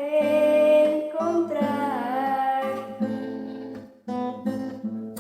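An acoustic guitar being plucked under a singing voice that holds long notes and slides down in pitch. The playing pauses briefly near the end, then picks up again.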